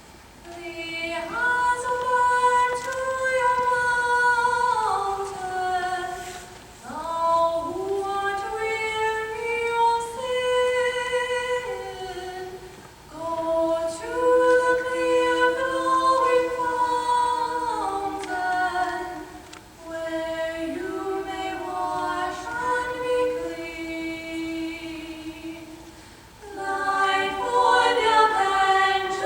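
A youth treble choir of children's high voices sings sustained notes in several parts, in long phrases with short breaths between them.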